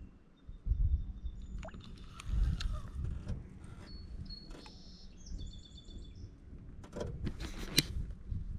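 Riverside ambience: birds chirping, over a low rumble of wind on the microphone that gusts about a second in and again near two and a half seconds, with a few sharp clicks near the end.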